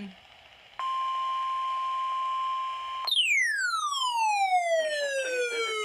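Broadcast electronic tones: after a brief pause a steady tone near 1 kHz starts abruptly and holds for about two seconds, then gives way to a long sweep whose pitch falls steadily from high to low. Faint voice audio sits under the sweep near the end.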